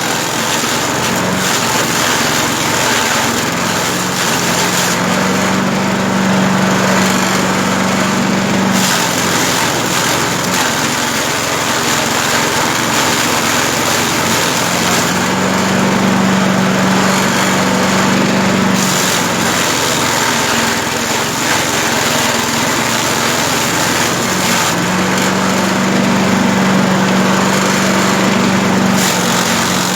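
Grass chopper for livestock feed running steadily on its small engine. Its note changes briefly three times, about every ten seconds.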